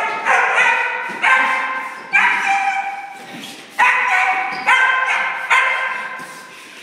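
A 15-week-old puppy barking, about seven high-pitched barks at uneven intervals, each starting sharply and trailing off.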